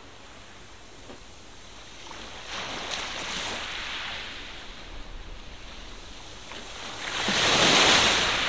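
Glossy magazine pages being handled and turned, a papery rustle that swells a few seconds in and again, loudest, near the end as a page is turned over.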